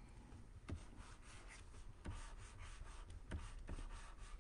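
Faint scratching of a stylus drawing strokes on a graphics tablet, with a few light taps of the pen tip.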